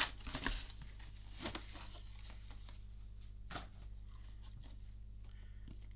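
Light handling noises from a boxed Blu-ray set: a few soft clicks and rustles, mostly in the first half-second, again around a second and a half in, and one near the middle, over a faint steady electrical hum.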